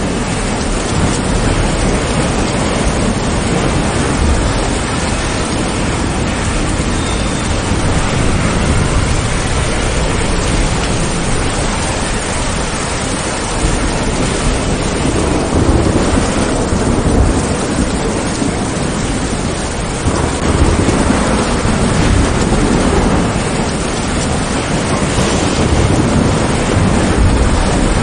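Rain falling steadily on tree leaves, with low rumbles of thunder swelling a few times, strongest in the second half.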